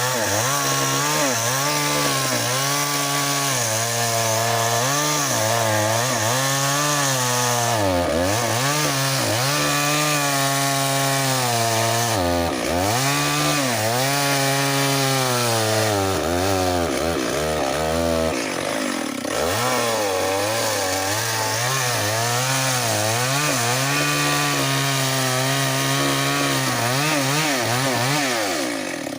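Chainsaw cutting through tree wood, its engine note repeatedly sagging under load and picking back up, with several deeper dips as the chain bites harder.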